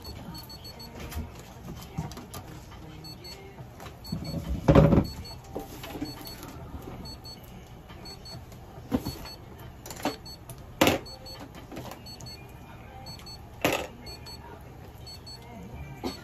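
A few sudden knocks and thuds, the heaviest about five seconds in and sharper ones near the middle and later, over a steady low hum and a faint pair of high electronic beeps that repeats every second or so.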